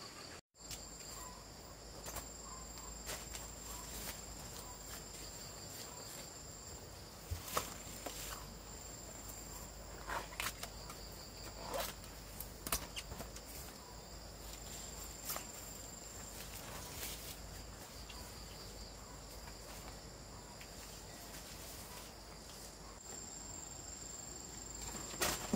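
Insects trilling outdoors in a thin, steady, high-pitched tone that comes and goes, with scattered light clicks and knocks, like footsteps and handling sounds, over quiet background noise.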